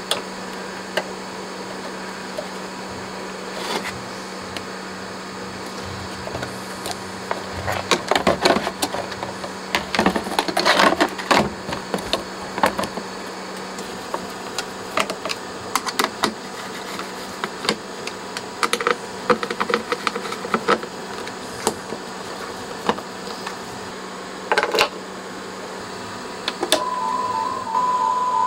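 Clicks, rattles and metal scraping as a module is fitted into a mixer amp's metal chassis and its screws are driven with a screwdriver, over a steady low hum. Near the end a steady tone of about 1 kHz starts, pulsing regularly as it comes through the effects.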